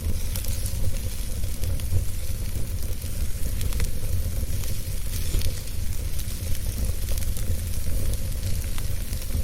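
Wood fire burning in a fireplace: a steady low rumble and hiss of the flames with scattered small crackles and pops from the burning wood.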